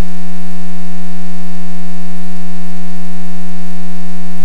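Loud, steady electrical hum at one fixed pitch with a row of even overtones. It shows no change at all, as from the cockpit intercom or recording feed rather than the engine.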